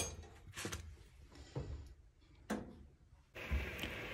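Faint kitchen handling: a few soft taps and knocks, about a second apart, as cooked msemen flatbreads are handled on a stack on a plate.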